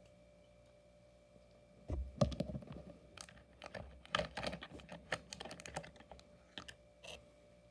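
Small diecast toy cars being handled: a quick run of light hard clicks and taps, starting about two seconds in and stopping shortly before the end.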